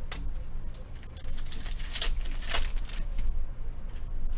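Trading cards and pack wrappers being handled: a few brief rustles and taps, the loudest about two and two and a half seconds in, over a low steady rumble.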